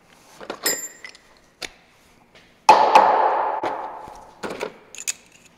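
Metal clinks and clatter of a new pneumatic air hammer and its chisel bits being handled and fitted together. A bright ringing metallic ding comes about a second in. Near the middle there is a louder sudden clatter that fades over about a second and a half, followed by a few lighter clicks.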